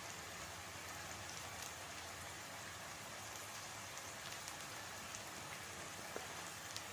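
Food sizzling in hot oil in a cooking pan: a steady hiss with scattered small crackles and pops.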